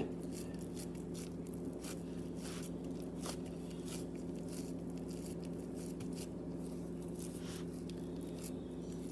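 Gloved hands pressing and patting raw ground-beef meatloaf mixture into a metal loaf pan: faint soft squishes and scattered small clicks. A steady low hum runs under it.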